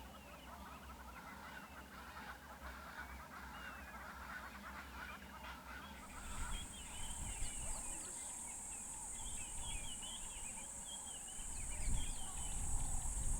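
Wild birds calling, with many short chirps and some honk-like calls. About halfway through, a steady high-pitched buzz starts and continues.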